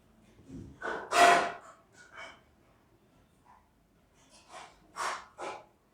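A person's short, sharp breathy noises from throat and nose, the kind made when coughing or clearing the nose. The loudest comes about a second in, and two more come close together near the end.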